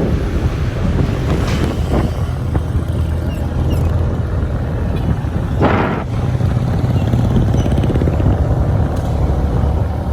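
Wind rushing over the microphone and road noise from a moving Honda Click 125i scooter, a steady low rumble, with a brief louder whoosh just past halfway.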